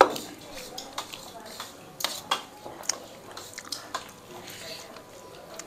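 A spoon and small bowls clinking against metal thali plates during a meal: a string of sharp clinks, the loudest right at the start with a brief ring.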